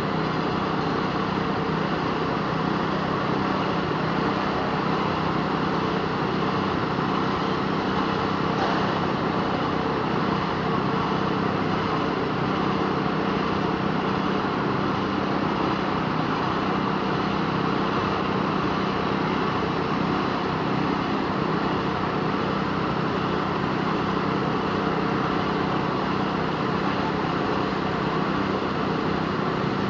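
An engine running steadily at a constant speed, an even hum with no changes in pitch or level.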